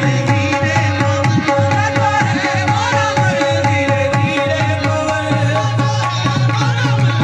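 Live qawwali music: a harmonium holds steady notes under wavering sung lines, with a hand drum beating a quick rhythm throughout.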